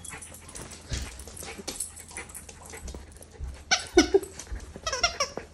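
Small Cairn terrier–Chihuahua mix dog giving short whines about four seconds in and again just before the end, amid light clicks.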